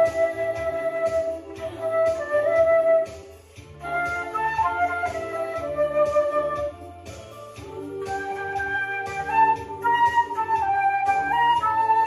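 Concert flute playing a slow melody with long held notes over an accompaniment track with a steady repeating bass beat. The flute breaks off briefly about three and a half seconds in, then carries on.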